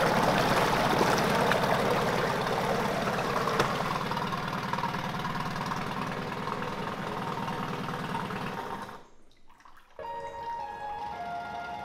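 Yamaha 9.9 hp four-stroke outboard running with its propeller churning the water of a test barrel, then stopping suddenly about nine seconds in. A few steady tones follow near the end.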